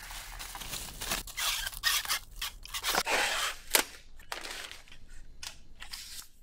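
Plastic packaging and bubble wrap being torn open and crumpled by hand: crinkling and ripping in quick, irregular bursts, with a sharp click a little past halfway.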